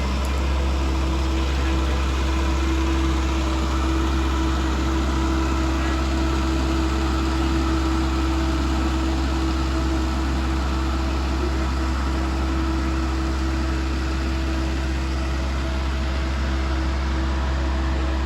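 Tree-trimming skidder's engine running steadily: a constant low drone with a steady hum over it.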